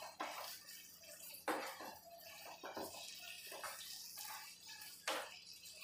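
Spatula stirring soya chunks through a thick wet masala in a non-stick kadhai, a soft squelching, with a few sharp knocks of the spatula against the pan, one about a second and a half in and another near the end.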